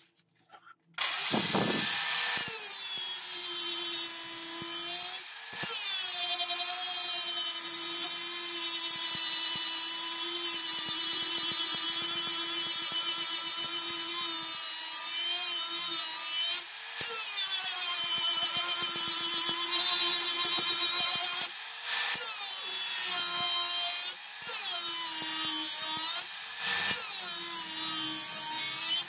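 Handheld angle grinder spinning up about a second in, then grinding the steel dagger blade to its profile with a steady whine that sags and recovers several times as the disc is pressed on and eased off the metal.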